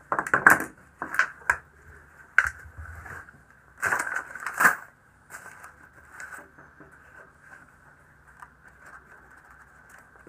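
A one-handed bar clamp being squeezed tight on the boards of an MDF and hardboard jig: a run of clicks and knocks over the first five seconds, then only faint ticks. A faint steady high tone runs underneath.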